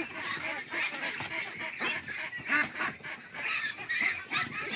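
A flock of white domestic ducks calling, with many short quacking calls overlapping one another. The flock is disturbed by being caught and bagged for harvest.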